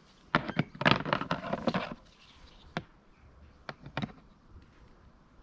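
Hard plastic lawnmower grass-box parts being handled and knocked together: a quick cluster of clicks and knocks in the first two seconds, then a few single clicks.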